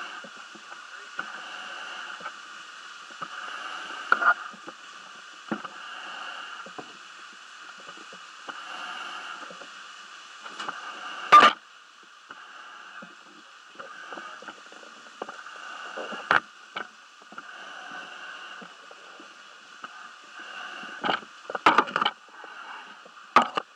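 A muffled, narrow hiss swelling and fading every few seconds, with scattered knocks of a diver's gear against a corrugated storm-drain pipe and aluminium ladder. The loudest knock comes about eleven seconds in, and a cluster of knocks follows near the end.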